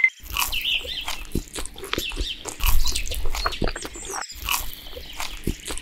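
A quick run of short, animal-like squeaks and grunts mixed with clicks, with one high falling squeal about four and a half seconds in.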